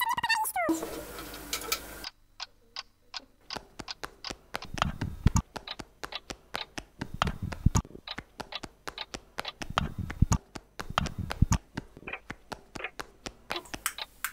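Typing on an HP laptop keyboard: a run of quick, irregular key clicks, some with duller thumps.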